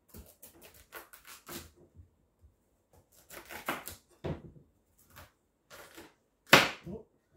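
Kitchen knife cutting through a hard-skinned pumpkin and knocking down onto a wooden chopping board: a series of sharp knocks and crunches, with the loudest knock near the end.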